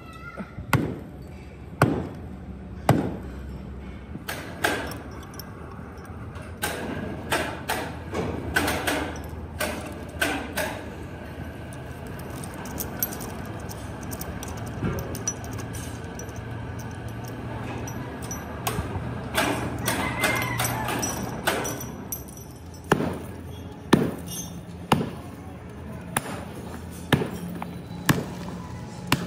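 Repeated heavy blows like hammering, about one a second near the start and again near the end, with a denser, irregular run of strikes in between. A steady low machine hum runs underneath.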